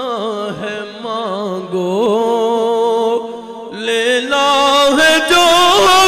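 A man chanting durood (devotional salutations to the Prophet) in long, drawn-out sung notes that waver up and down; about four seconds in the chant grows louder and fuller.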